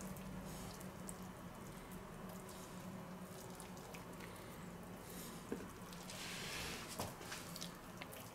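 Faint wet squishing and handling of raw pork neck being rolled up by hand on a wooden cutting board, with a few light taps and a louder rustle about six seconds in.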